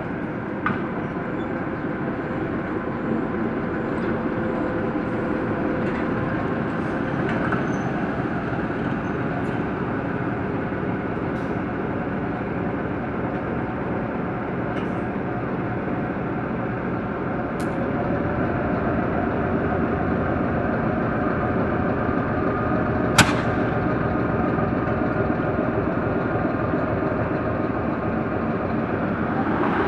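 Shunting locomotive running with a steady drone, with a few short sharp knocks over it, the loudest about two-thirds of the way through.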